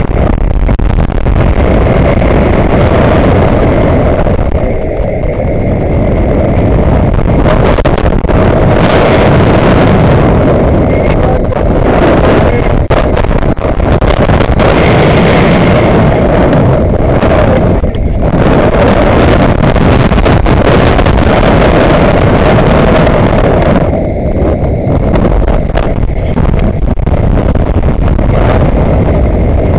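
Loud, steady rush of wind buffeting the microphone of a camera carried on a swinging, spinning fairground ride, dipping briefly a few times.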